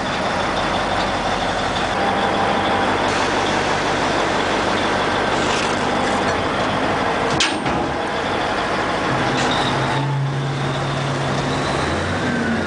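Heavy earthmoving machine's diesel engine running steadily while loading rock onto a truck, with a sharp knock about seven and a half seconds in.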